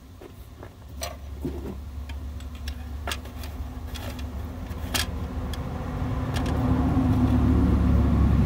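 Low engine drone growing steadily louder, with several sharp clicks and knocks in the first half.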